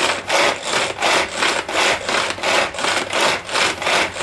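Hand-pulled cord food chopper whirring its blades through quartered onions and parsley, one rasping whirr per pull at a quick, even rhythm of about three pulls a second.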